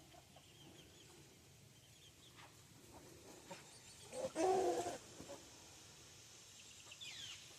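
Chickens in a pen making soft, scattered calls, with one louder cluck about four seconds in and a short falling chirp near the end.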